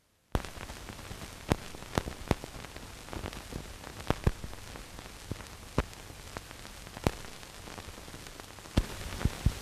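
Surface noise from the optical soundtrack of a worn 1930s film print: a steady hiss with irregular crackles and pops from dust and scratches, starting abruptly just after the beginning.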